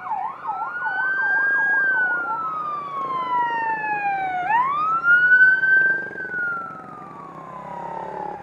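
Electronic siren of an escort vehicle sounding a fast yelp, about three cycles a second, which switches about two seconds in to a slow wail that falls, rises and falls again.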